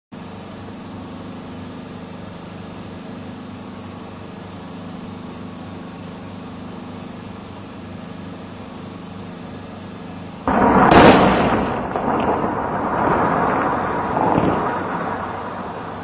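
Explosive demolition of a large masonry shrine: a steady low background hum, then about ten seconds in a sudden loud blast. Several seconds of loud noise follow, swelling again before they fade near the end.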